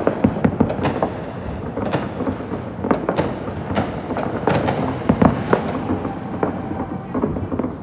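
Fireworks going off in a rapid, irregular series of sharp bangs and pops over a continuous rumble.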